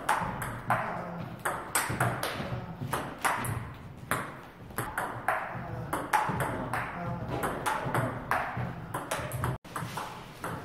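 Table tennis rally of chops: the plastic ball clicking off the paddles and bouncing on the table about twice a second, each hit ringing briefly.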